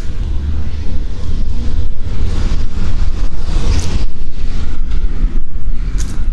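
Wind buffeting a small camera's built-in microphone: a loud, continuous low rumble that swells and dips, over faint street ambience.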